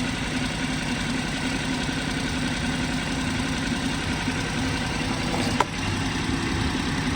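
BMW 118i's 1.5-litre three-cylinder turbo petrol engine idling rough with a constant misfire that shakes the engine. A single sharp click sounds about five and a half seconds in.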